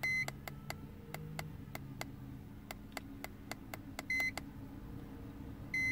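Handheld car diagnostic scan tool beeping as its keys are pressed: three short, high beeps, one at the start, one about four seconds in and one at the end. Underneath run a faint, fast, regular ticking and a low steady hum.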